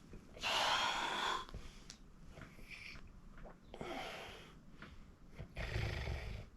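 A sleeping person breathing noisily and snoring: three heavy breaths, the first about half a second in and the loudest, the last, near the end, with a low rumble in it.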